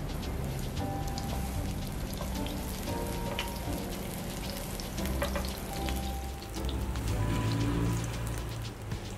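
Eggplant rings sizzling and crackling as they shallow-fry in hot oil in a frying pan, with background music playing underneath.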